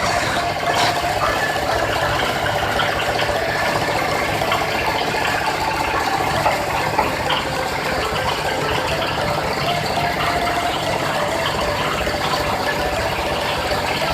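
Fibre decorticator machine running, with a steady, fast mechanical rattle and no pauses.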